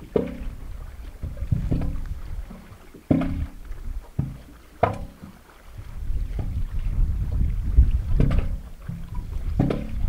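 Small waves slapping and sloshing against a concrete embankment, a separate splash every second or so, over a low steady rumble of water and wind.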